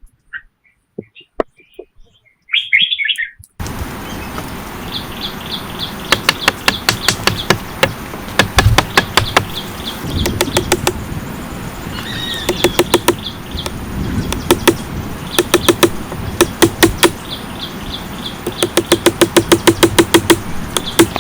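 Birds chirping over quiet surroundings, then from about four seconds in a steady hiss with runs of rapid sharp knocks, several a second, as of something being struck or chopped repeatedly.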